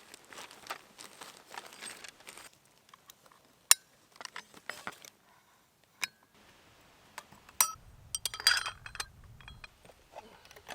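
Small metal parts and tools clinking and clicking as they are handled, likely during work on a weed whacker's brush-blade fitting. Scattered single clicks give way to a brief, denser clatter with a metallic ring a little past the middle.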